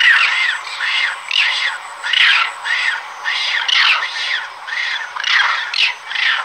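Shrill animal calls repeating about twice a second, each a quick rise and fall in pitch, with higher sweeping squeals among them.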